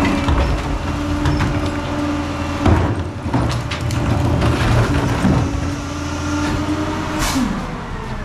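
PakMor rear-loading garbage truck running in place with a steady whine over the engine's rumble. The whine breaks off about three seconds in, comes back, and drops away near the end. Bangs and clunks of trash carts being dumped into the rear hopper come through it, the loudest about three seconds in.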